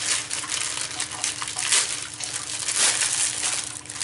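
Parcel packaging rustling and crinkling as it is pulled open by hand, in irregular noisy bursts.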